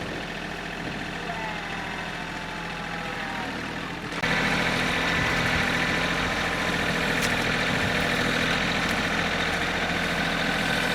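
An engine running steadily at idle, rising to a louder, busier running about four seconds in and staying there.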